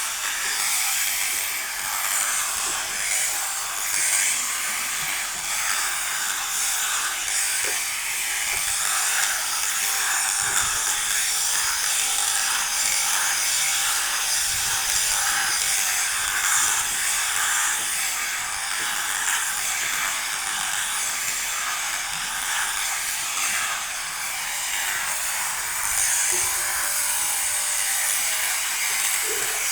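Takumi 900 sheep shearing machine running steadily, its hanging motor driving the cutting handpiece through a flexible shaft.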